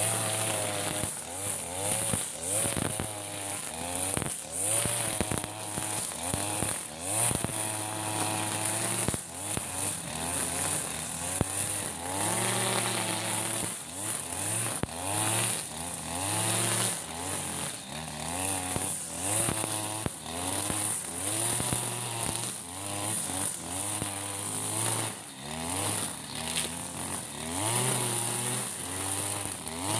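Backpack brush cutter's engine running, its pitch rising and falling over and over as the throttle is opened and eased, while the cutting head cuts through tall, overgrown grass.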